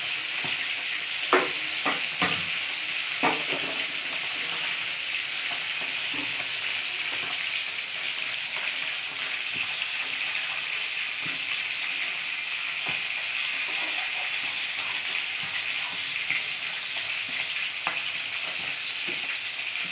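Small pomfret (rupchanda) fish frying in hot mustard oil in a metal kadai, a steady sizzle throughout. A few sharp clicks come in the first few seconds, with fainter ticks later.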